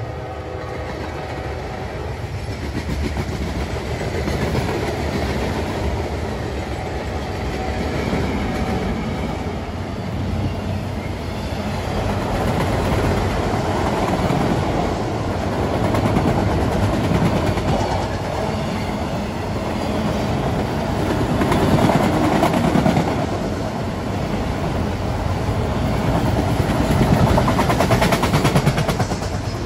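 Freight train cars, mostly autoracks, rolling past on the track: a steady rumble and rattle of wheels on rail that grows louder toward the end.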